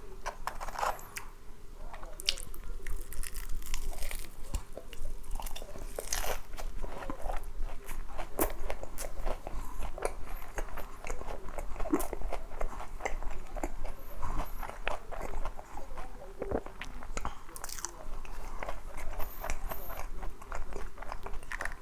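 Close-miked crunching and chewing of glazed boneless fried chicken: a steady run of crisp bites with wet chewing between them.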